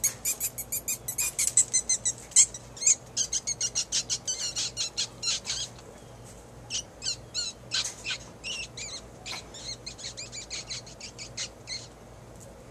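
A rapid series of short, high chattering calls, several a second, in two bouts with a brief pause about six seconds in.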